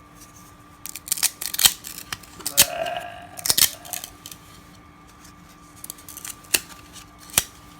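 Baseball trading cards from a 1999 Fleer Ultra pack being separated and flipped through by hand. Irregular sharp clicks and snaps come in a cluster from about one to four seconds in, then two single snaps near the end.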